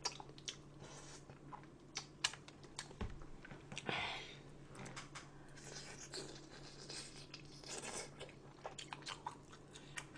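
A person eating close to the microphone: soft chewing with small mouth clicks and smacks, and a few brief crunchy bites, over a faint steady hum.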